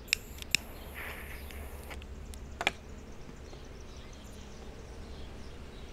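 Quiet outdoor ambience with a steady low hum, broken by a few short sharp clicks in the first three seconds, the last of them the loudest.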